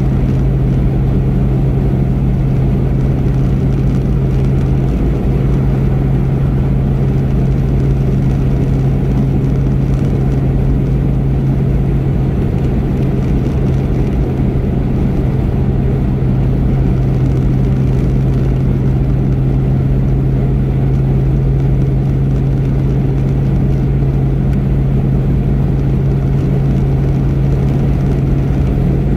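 Car cruising at a steady highway speed: a steady low hum over constant road and tyre rumble, with no change in pitch.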